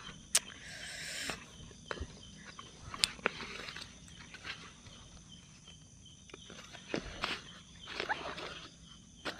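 Rustling and scattered light clicks from a backpack being handled on dry leaf litter, with a louder rustle about a second in. A faint steady high insect chirr runs underneath.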